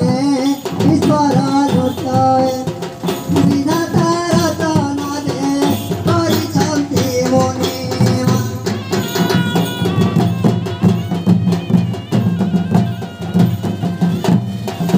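Odia folk music for Danda nacha: a mohuri reed pipe plays a held, wavering melody over rapid, continuous beating of dhol and frame drums.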